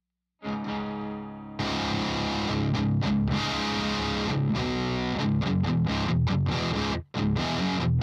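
Distorted electric guitar played through a ThisHeavyEarth Grim 3 808-style overdrive pedal into a Mesa Boogie Rectoverb 50 amp. A single chord rings out and fades, then heavy high-gain riffing starts about a second and a half in, with abrupt stops near the end.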